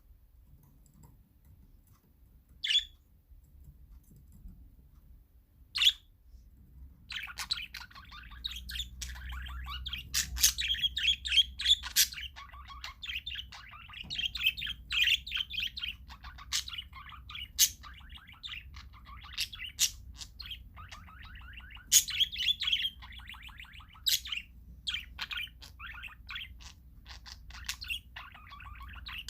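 Parakeets calling: two single short calls a few seconds apart, then from about seven seconds in a flock chattering continuously with rapid warbling chirps and loud short squeaks.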